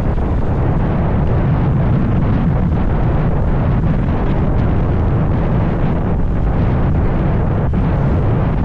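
Loud, steady wind buffeting on the microphone of a camera riding on a moving motorcycle, a rumble heaviest in the low end that drowns out everything else.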